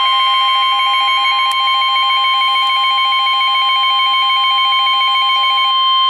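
Emergency weather alert tone: a loud, steady single-pitched tone of the kind NOAA Weather Radio sounds as its warning alarm, signalling that a severe weather warning follows. A fainter, rapid pulsing tone runs beneath it, and the main tone cuts off suddenly at the end.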